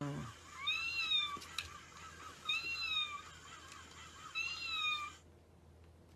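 Battery-operated walking toy kitten playing the same recorded meow three times, about two seconds apart, over the faint whir of its walking mechanism. Both stop suddenly about five seconds in.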